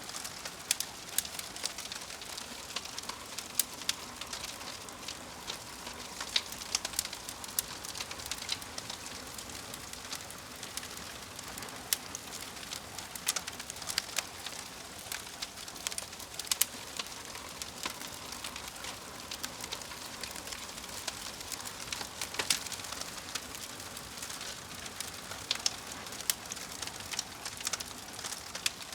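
Wood fire crackling: a steady soft hiss with frequent irregular sharp pops and snaps, a few of them louder.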